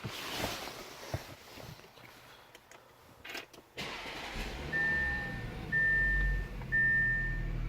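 Clicks and handling noises inside the 2016 Audi A7's cabin, then the engine starts about four seconds in and idles with a low steady hum. A warning chime begins beeping in long, even beeps about once a second.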